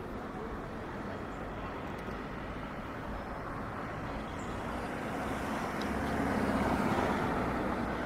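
City street traffic noise, with a motor vehicle passing close by that grows louder, is loudest around six to seven seconds in, then fades.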